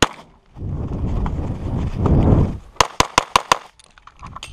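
Springfield XDm 9mm pistol firing: a single shot at the start, then, after about two seconds of low rumbling noise, a fast string of five shots.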